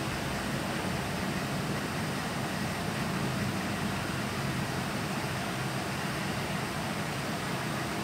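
Steady, even background noise, a hiss with a low hum, with nothing standing out.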